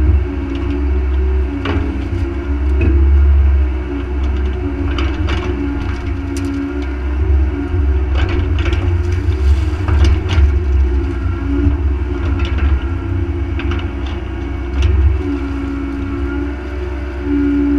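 Bobcat mini excavator's diesel engine running under hydraulic load as the boom and bucket move, its note dipping and rising, with scattered knocks and clanks from the bucket and linkage.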